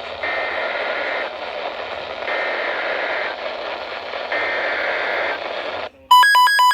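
Three short bursts of Emergency Alert System (SAME) header data, a shrill digital screech, heard through the static hiss of a weather radio receiver. Near the end the hiss cuts off and a loud, rapidly pulsing electronic alert beep begins.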